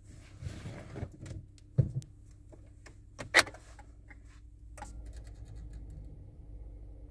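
A few clicks and knocks inside the car, two of them sharp. About five seconds in, the Renault Megane 2's 1.5 dCi diesel begins turning over in −17 °C cold: a steady low rumble with fast, faint ticking.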